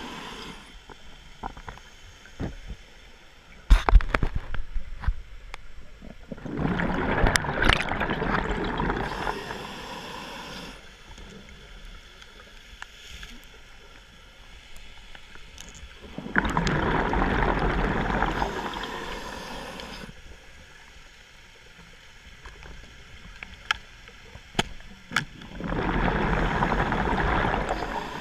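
Underwater scuba breathing: the regulator's exhaust bubbles rush out in three long bursts, each several seconds long and about ten seconds apart, with quieter regulator breathing between them. A few sharp knocks sound about four seconds in.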